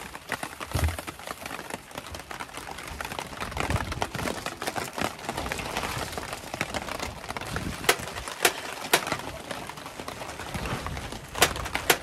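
Steady rain and wind on a tarp shelter, with a few sharp clicks and knocks scattered through, several close together near the end.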